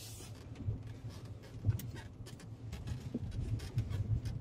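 Cabin sound of a 2020 Kia Telluride SX V6 AWD crawling over a rutted dirt trail: a steady low rumble from the drivetrain and tyres, with scattered short knocks and rattles as it jolts over the bumps.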